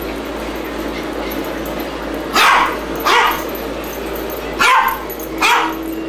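A small dog barking four short barks in two pairs, during a tug-of-war game with a leash.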